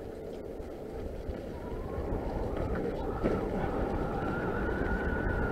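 Norco Fluid FS3 full-suspension mountain bike rolling along a leaf-covered dirt trail, with a low rumble of tyres and wind that grows louder as it picks up speed. A thin steady whine comes in about two seconds in, rising briefly in pitch and then holding.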